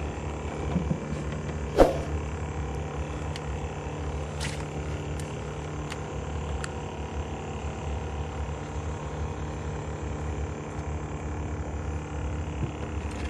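Steady low rumble and hum, with one sharp click about two seconds in and a few fainter ticks over the next few seconds.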